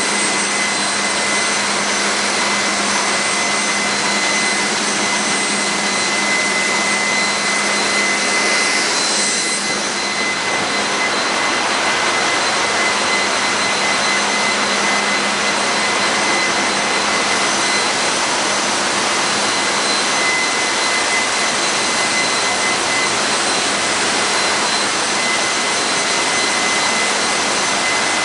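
Steady loud roar of a tanker's engine room machinery, with several high steady whine tones over it. The level dips slightly about ten seconds in.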